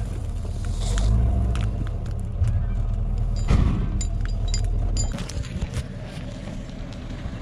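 Vehicle engine running with a heavy low rumble, with scattered metallic clicks and a few short squeaks; the rumble drops off about five seconds in.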